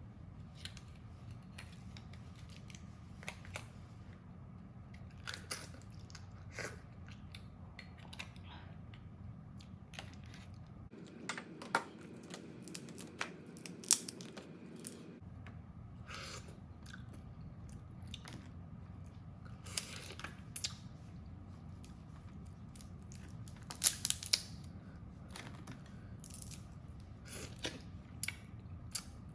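Crab shell being cracked and bitten, with chewing between: scattered sharp cracks and crunches, the loudest about halfway through and again late on.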